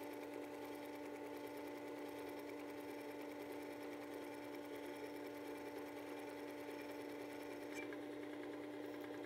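Horizontal-wheel power sharpener running with a steady motor hum while the flat back of a steel bench chisel is lapped on the 3600-grit abrasive on top of the spinning wheel, the steel rubbing on the fine abrasive. A brief click comes near the end as the chisel is lifted.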